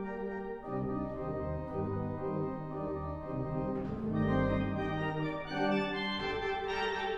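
Pipe organ playing solo: chords that change every half second or so over low bass notes, the sound turning brighter and fuller about six seconds in.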